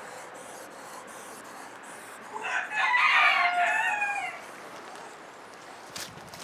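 A fighting rooster crowing once, a single cock-a-doodle-doo of about two seconds that begins about two and a half seconds in and falls in pitch at the end.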